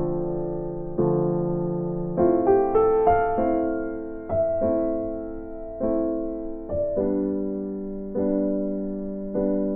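Slow piano music: chords struck about once a second, each ringing out and fading, with a short run of quicker notes about two seconds in.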